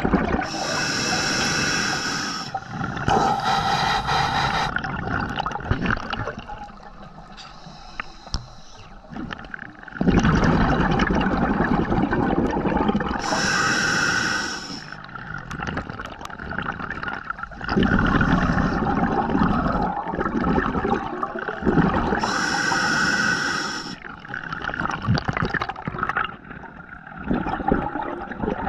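Underwater sound of a scuba diver breathing through a regulator: steady water noise, broken by four loud bursts of bubbling, most likely exhaled breath, each lasting one and a half to two seconds.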